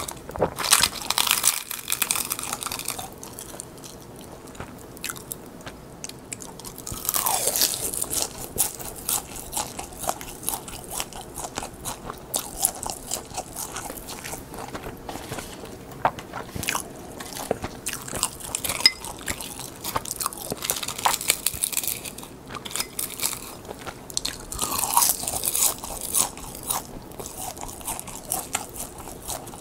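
Close-miked biting and crunching of crisp roasted seasoned laver (gim), with chewing between bites and louder bursts of crackling a few times.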